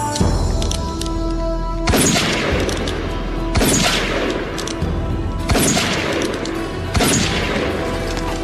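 Five revolver shots, spaced about one and a half to two seconds apart, each a sharp crack followed by a ringing echo, over background music with held notes.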